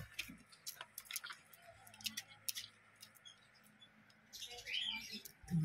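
Shih Tzu puppy giving one short, high squeak near the end, among scattered light clicks and scratches as it moves about in a plastic basin.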